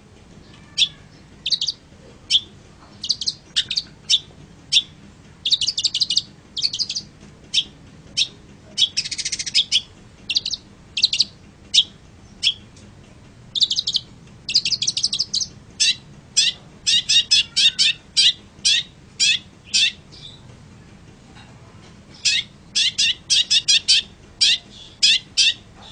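Long-tailed shrike singing: a long run of short, sharp, high chirps and fast trills in bursts. There is a harsh rasping note about nine seconds in, a pause of about two seconds near twenty seconds, and then more quick notes that drop in pitch.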